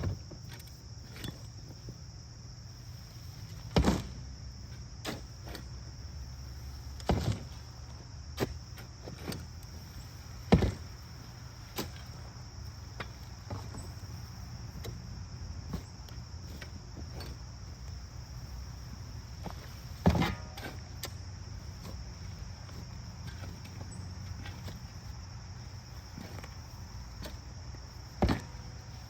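Irregular thuds and scrapes of a shovel digging into soil and a rotten stump, a dozen or so strikes spread out with a few much louder than the rest. Behind them, crickets keep up a steady high trill.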